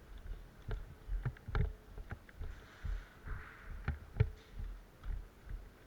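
Footsteps of the camera wearer walking at a steady pace, about two dull thumps a second, with light clicks and rattles of carried airsoft gear.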